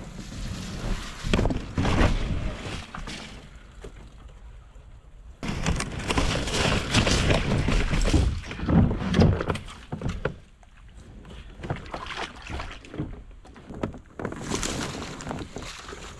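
Irregular knocking, scraping and rustling of a kayak being handled, loudest in the middle stretch.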